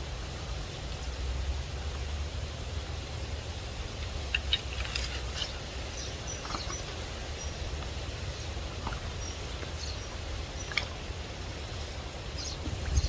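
Steady low rumble of strong wind buffeting the microphone, with short high bird chirps scattered through it and a few faint clicks.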